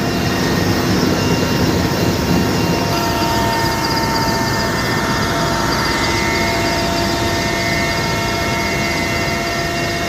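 Military helicopter's engine and rotor noise heard from inside the cabin with the door open, loud and steady, with a constant high whine over it.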